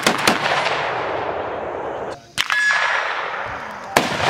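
A shot or two from a semi-automatic M4 shotgun fitted with an ATI Raven stock, the report echoing away over about two seconds. About two and a half seconds in comes a sharp crack with a short ringing tone, and near the end a single loud shot from a large-frame revolver.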